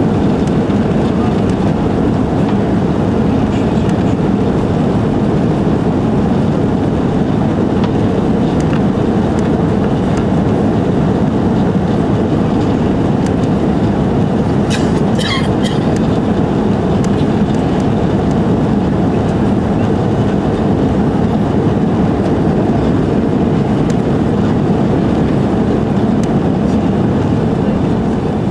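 Steady cabin noise of an Airbus A330-300 climbing after takeoff: the low, unbroken roar of its Rolls-Royce Trent 700 engines and the rush of air past the fuselage, heard from inside the cabin.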